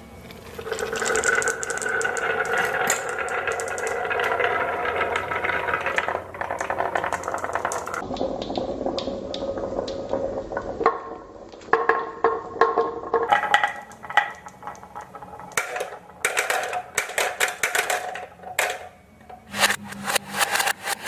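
Marbles rolling and rattling down a HABA wooden marble run with transparent pipes: a continuous rolling rumble for the first several seconds, then many separate clacks and clatters as pieces drop and bounce along the track.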